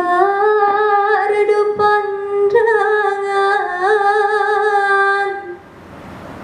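A woman singing a solo Islamic pop song into a handheld microphone, holding long notes with a slight waver. A new phrase starts about two and a half seconds in, and the voice stops about five and a half seconds in.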